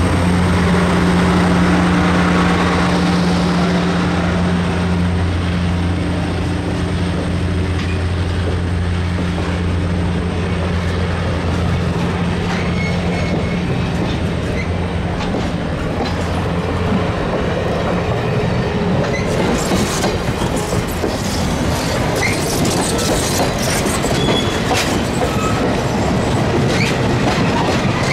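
Passenger train rolling slowly past. The steady drone of a diesel generator car's engine fades out over the first half, and the coaches' wheels then clack over the rail joints with a few brief squeals.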